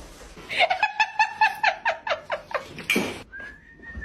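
A high-pitched voice in a quick run of short laugh-like pulses, about five a second. About three seconds in, a steady high whistled note begins and holds.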